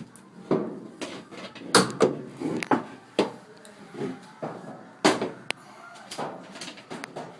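Irregular knocks and clunks, about a dozen, from a clothes dryer's metal cabinet being handled. The loudest come about two seconds in and again about five seconds in.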